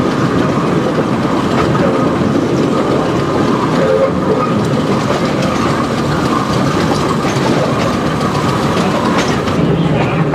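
1920 Brill electric railcar running along the track, its wheels clattering on the rails under a steady, even noise, with a steady whine running through it.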